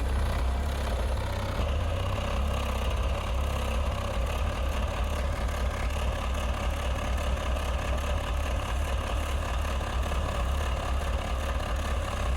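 An engine idling steadily, a low even hum with no change in pace.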